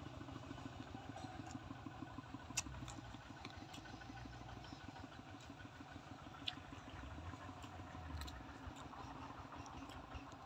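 A small engine idling steadily in the background, a low even pulsing hum, with two sharp clicks from eating, one a little over two seconds in and another past the six-second mark.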